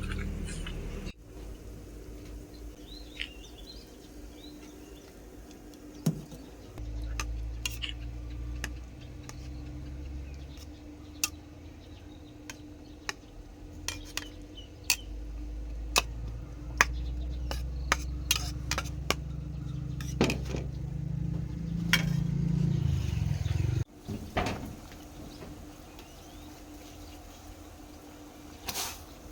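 Utensils clinking and knocking against pots and dishes: a string of short, sharp clinks over a low rumble that stops suddenly near the end.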